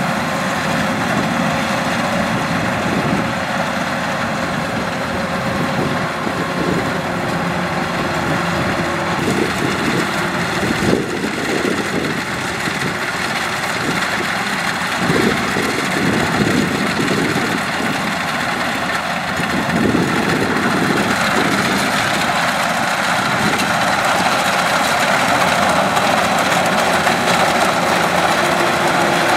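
Kubota DC-105X crawler rice combine harvester running steadily as it cuts and threshes rice, its diesel engine and machinery turning over together; a little louder in the second half.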